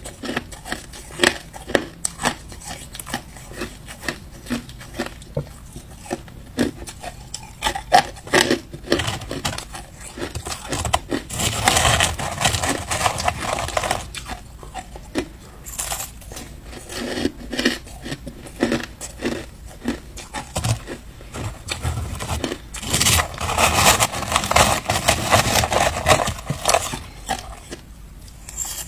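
Hard ice being bitten and chewed: a run of sharp crunches and cracks, with a metal spoon scooping crushed ice in a plastic tub. Two longer, denser bouts of crunching and scraping come near the middle and again later on.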